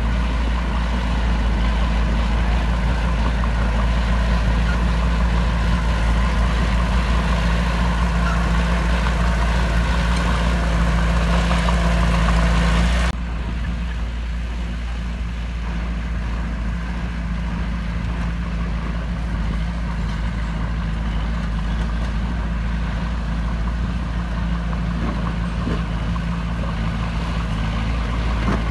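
Heavy diesel engine of earthmoving equipment running steadily. About halfway through the sound cuts abruptly to a quieter, duller engine note that then runs on steadily.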